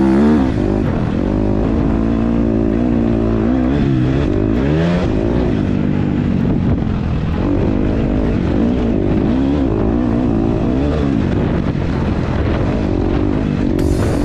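250 cc four-stroke motocross bike engine running loud under throttle while ridden, its pitch rising and falling again and again as the rider opens and closes the throttle.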